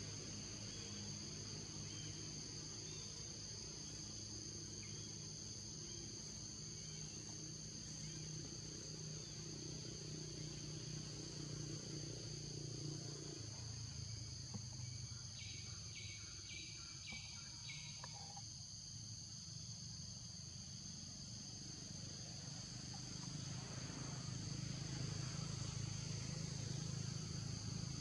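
Forest insects shrilling steadily in two high-pitched bands, over a low steady hum. About halfway through, a short run of five quick chirps.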